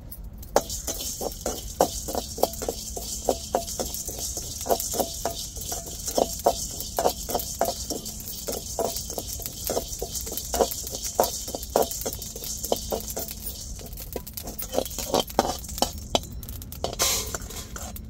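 A perforated metal ladle scrapes and clinks against a metal pan in quick, uneven strokes, about two or three a second, as fennel seeds and black peppercorns are stirred while dry-roasting. A steady high hiss runs underneath.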